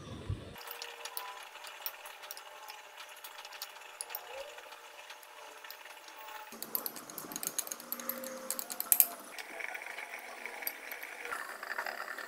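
Kitchen handling sounds: scattered light clicks and taps, then a busier run of sharper clinks and knocks about halfway through, loudest around nine seconds in, as metal tongs lay goatfish into a clay pot.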